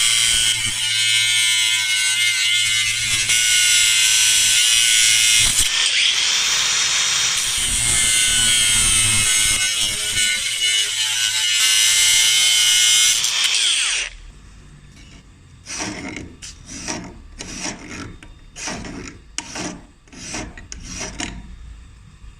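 A power tool running under load for about fourteen seconds, its whine shifting and dipping briefly partway through, then cutting off. A quieter series of short strokes follows, about two a second.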